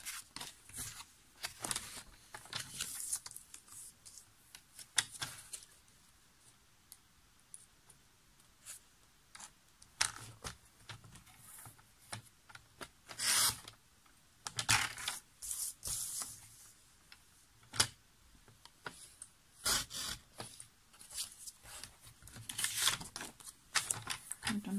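Paper trimmer cutting card stock: several short strokes of the sliding blade along the rail, with clicks and rustling as the paper is lined up and handled.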